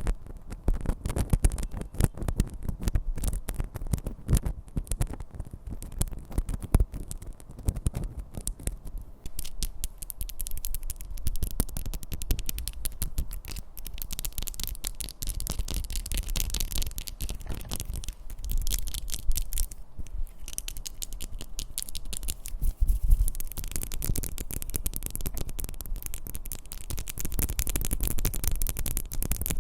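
ASMR tapping sounds: quick, dense taps and scratchy rubbing on objects, with no voice. From about ten seconds in, a scratchy hiss is mixed in with the taps.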